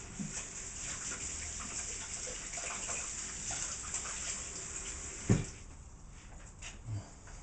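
Handheld immersion blender churning strawberries into a coulis, a steady watery whirr, then a sharp knock about five seconds in, after which the blending stops.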